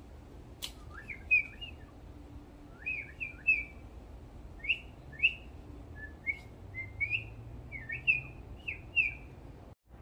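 Red-bellied woodpecker calling: short chirped notes, most rising then dropping, given in quick clusters of two or three and repeated every second or so. A single sharp click comes just before the first calls.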